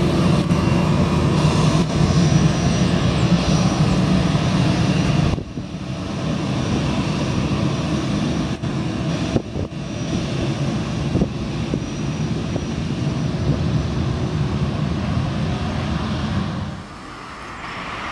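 Jet engines of an Airbus A320-family airliner running steadily as it taxies past, a continuous low rumble with a hissing roar above it. The level drops suddenly about five seconds in, then falls away again near the end.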